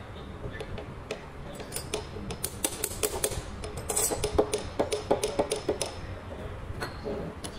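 Metal parts of a tractor dual-clutch pressure plate assembly clinking and clicking as its release fingers and levers are handled and worked by hand. A run of sharp clicks comes from about two seconds in until about six seconds, with one more knock near the end.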